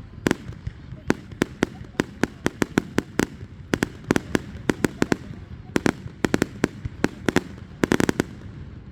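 Fireworks going off: an irregular string of sharp bangs and cracks, several a second, with a dense burst of crackling about eight seconds in.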